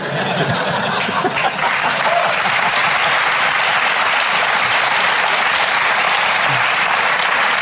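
Studio audience applauding, building up over the first second or two and then holding steady.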